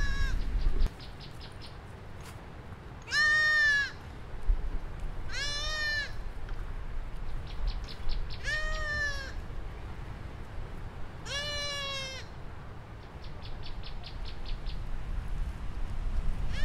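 Goat bleating four times, each call under a second with a rise-and-fall in pitch, a few seconds apart.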